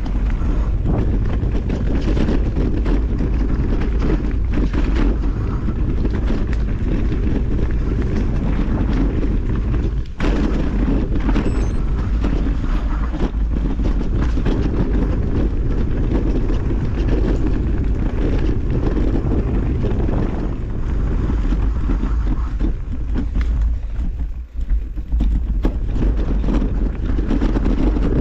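Wind rushing over the microphone of a mountain bike's on-board camera, with the bike rattling and knocking continually as it rides over rough trail. There are brief dips in the noise about ten seconds in and again near the end.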